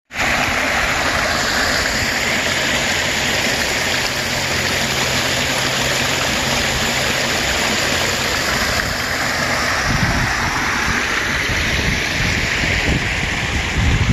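Floodwater rushing and churning over rocks, a steady loud rushing noise from storm-swollen flow. From about ten seconds in, low irregular rumbles join it.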